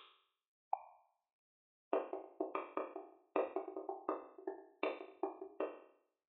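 Background music: a light melody of struck, bell-like notes, each ringing briefly and fading. One note sounds near the start, then a quick run of about a dozen notes follows.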